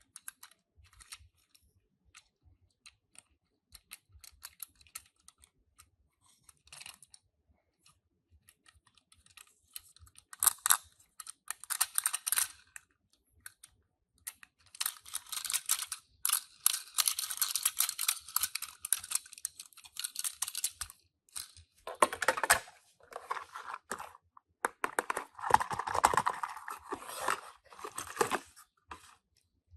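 Hands handling Tomica die-cast toy cars and their packaging: scattered light clicks and taps, then, from about halfway in, long stretches of rustling and crinkling.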